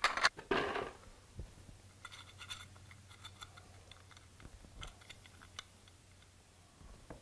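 Loose 6-inch floor tiles being slid and set down on a hard floor, scraping and clacking, with small clicks as plastic tile spacers are pushed in between them. The loudest scrapes come in the first second, followed by lighter scratching and ticks.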